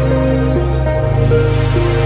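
Background music: a steady electronic tune with a sustained low bass note and a melody of held notes changing about every half second, the bass shifting to a new note about a second in.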